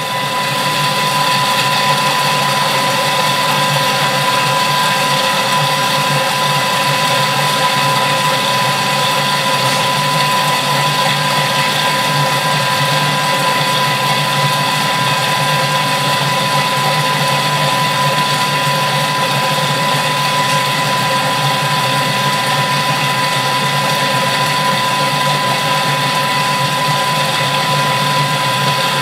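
Thermomix food processor's motor running steadily at speed 5, mixing pancake batter, with a steady high whine over a low hum. It cuts off sharply at the end of its thirty-second run.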